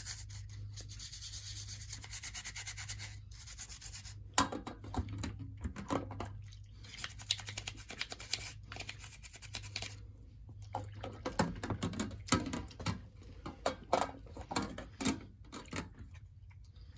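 A brush scrubbing the soapy plastic shell of a small model diesel locomotive in quick back-and-forth strokes, with a steady low hum underneath.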